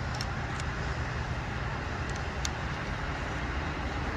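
Steady low background rumble with a constant hiss over it, broken by a few faint, light clicks about a quarter second in, around half a second in, and twice a little after two seconds.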